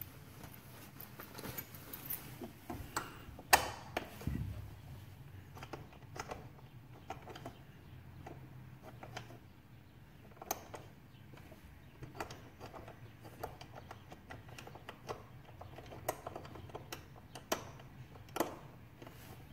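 Combination key lockbox being handled: a loud snap with a dull knock a few seconds in as its cover is shut, then irregular small clicks as fingers turn the four number dials to scramble the code.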